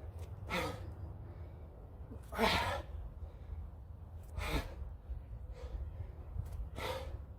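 A man's heavy, forceful breaths out during an explosive bodyweight exercise, four of them about two seconds apart, the second the loudest. A steady low hum runs beneath.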